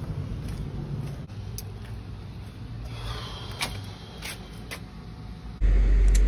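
Footsteps in slider sandals on an outdoor path: a few faint scuffs and clicks over a low background rumble. About five and a half seconds in, the sound jumps suddenly to a much louder, steady low rumble.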